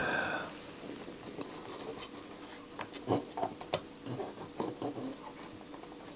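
Faint scratching and a few small, scattered clicks as a soldering iron tip works a joint on the underside of a circuit board.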